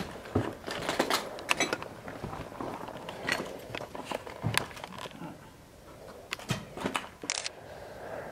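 Footsteps crunching over fallen plaster and debris on a rubble-strewn floor: irregular crackles and snaps at an uneven walking pace. A short hiss comes near the end.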